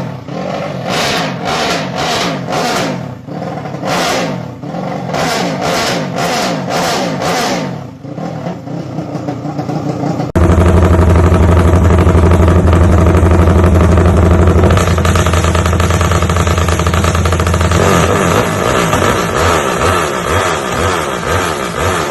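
Drag-built Honda Sonic motorcycle with a 500cc engine and free-flow racing exhaust, revved in quick, repeated throttle blips. About ten seconds in, the sound changes suddenly to a loud, steady high-rev run.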